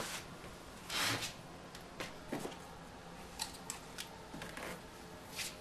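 2-inch spring clamps being squeezed open and clipped onto the edge of a wooden easel frame, making a scatter of short clicks and snaps with a louder clatter about a second in.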